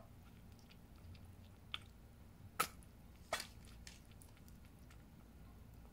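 Kitten lapping milk, a faint wet lapping with a few sharper clicks.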